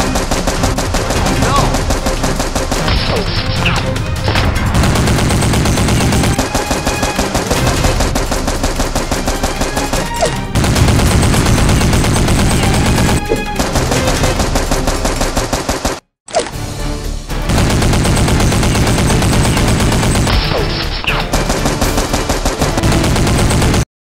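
Rapid automatic gunfire sound effects in long, dense bursts, dubbed over a toy-blaster gunfight, with music underneath. It breaks off briefly about two-thirds of the way through, and cuts off abruptly just before the end.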